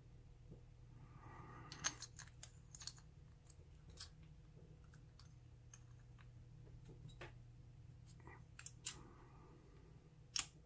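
Faint, scattered metallic clicks and ticks of small tools, a thin shim and follower, working against a pin-tumbler lock cylinder held in a vise, over a steady low hum.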